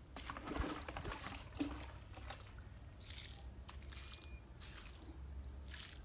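Water scooped from a plastic bucket and splashed onto garden soil in short, irregular pours, over a faint low rumble.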